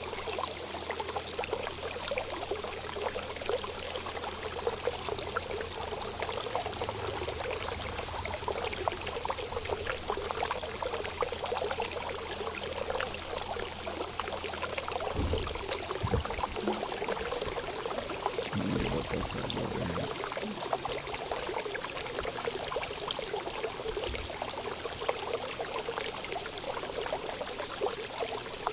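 Water running steadily in a continuous pouring, trickling flow. A few brief low thumps come around the middle.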